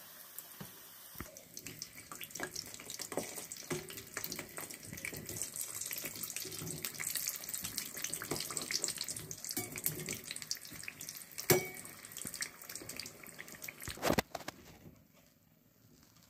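Singaras (cauliflower samosas) deep-frying in hot oil in a kadai: a dense crackling sizzle, with two sharp knocks about two-thirds of the way in and again near the end. The sizzle fades away near the end.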